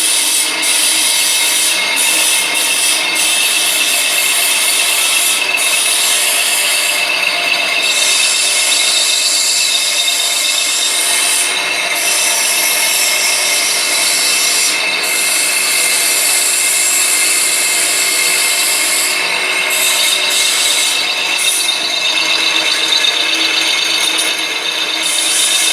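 Iron pipe-bending machine running steadily: a motor's steady whine with harsh metal rubbing and grating, thinning briefly in the highs a few times.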